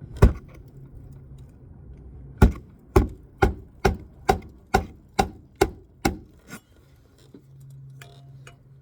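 Hammer striking a roofing nail under a lifted roof shingle to set it flush: one blow, then a run of about nine blows roughly two a second, ending with a lighter tap.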